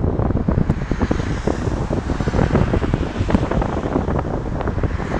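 Engines of a twin rear-engined jet airliner at high power as it rolls away down the runway: a loud, ragged low rumble full of crackle, with wind buffeting the microphone.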